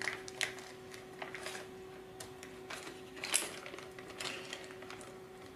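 Clear plastic parts bag crinkling as it is handled, and small plastic washers clicking down onto a table, in a string of irregular light clicks and rustles, the loudest a little past the middle. A faint steady hum runs underneath.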